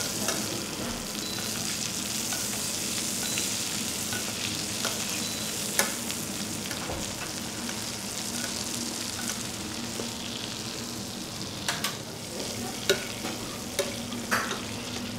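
Beef fillet steak sizzling in butter with rosemary and garlic in a frying pan, basted with a spoon. The spoon clicks against the pan a few times, most of them near the end.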